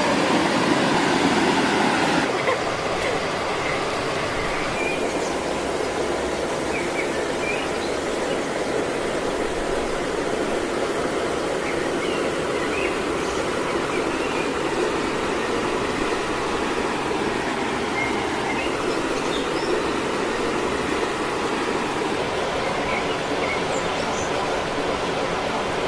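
Steady rush of flowing water, slightly louder for the first couple of seconds and then even, with faint short high chirps here and there.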